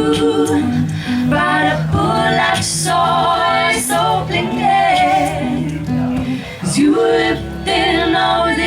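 A song performed live: singers holding long notes over the band's accompaniment and a steady low bass line.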